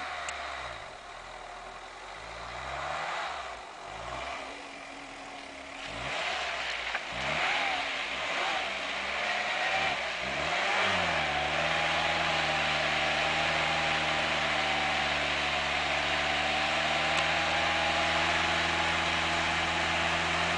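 Off-road 4x4 engine revved up and down in several short bursts, then held at steady high revs from about halfway through as the vehicle pushes through deep slush and water.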